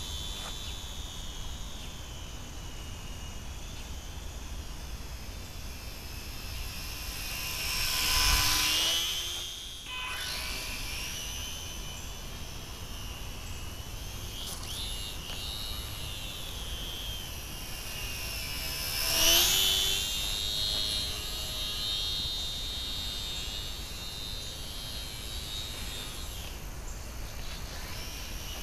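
The tiny electric motor and propeller of a small RC plane, from a Hobbyzone Champ, whining high-pitched in flight. It swells loudly and shifts in pitch twice, about eight seconds in and again near nineteen seconds, as the plane passes close.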